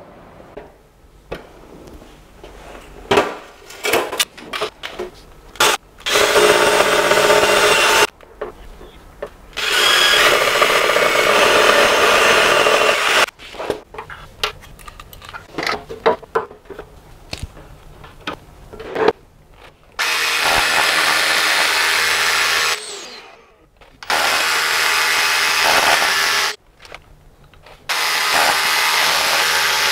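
Makita cordless rotary hammer drilling into the wall in repeated bursts of two to four seconds, about five in all, the first about six seconds in. Scattered clicks and knocks from handling the tool come between the bursts.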